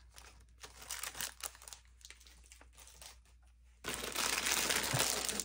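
Clear plastic packaging around a silicone mold being handled and crinkled: scattered light crackles at first, then loud, continuous crinkling from about four seconds in.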